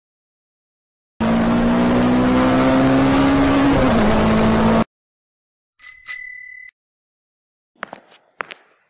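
Sound effect of a motor vehicle's engine running steadily, dipping slightly in pitch near the end, then cut off abruptly. A bell then dings twice in quick succession, followed by a few sharp clicks.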